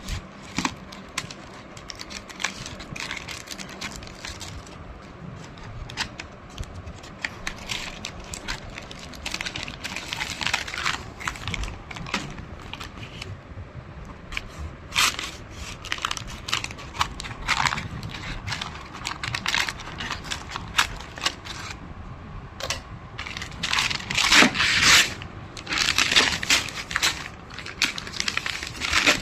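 Shoe delivery packaging being handled and torn open: irregular crinkling, crackling and tearing, loudest about three-quarters of the way through.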